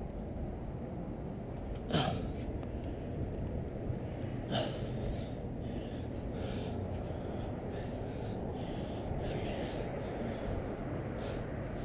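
A person's breathing, in short hissy puffs, over a steady low rumble of handling noise on a body-worn camera. Two sharp knocks, about two seconds and four and a half seconds in, come from climbing up through the roof opening.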